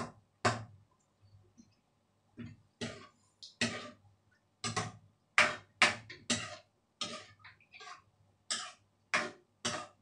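Metal ladle knocking and scraping against a metal frying pan while curry with coconut milk is stirred: sharp, irregular clicks about one or two a second.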